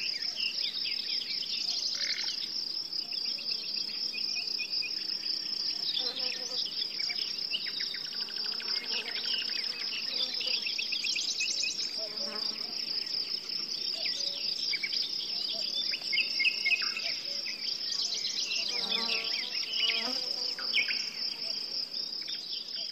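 A steady, high cricket trill runs throughout, with small birds chirping and twittering over it.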